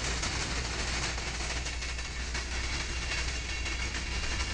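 Freight train rolling past: a steady rumble and rattle of steel wheels on rail, with faint clicking of wheels over the rail joints.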